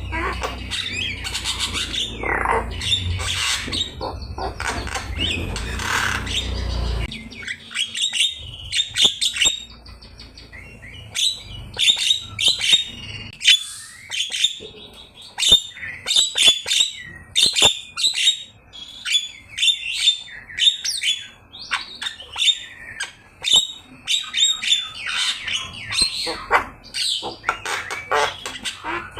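Javan myna calling loudly: harsh chattering, squawks and short whistles. The calls are dense over a low rumble for about the first seven seconds, then come as quick runs of sharp clipped notes.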